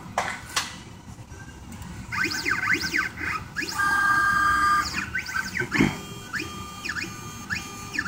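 Stepper motors of a 3D Xtreme computerized key machine driving its axes as it begins tracing a tubular key: repeated whines that rise and fall in pitch as the axes speed up and slow down, with a steady two-tone hum for about a second near the middle and a few light clicks.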